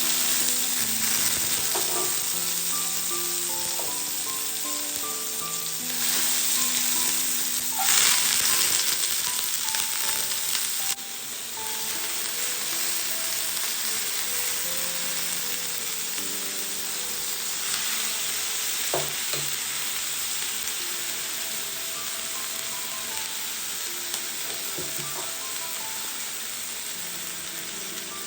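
Food sizzling loudly as it is stir-fried in a hot pan. The sizzle swells about six seconds in, then settles lower about eleven seconds in. Background music plays throughout.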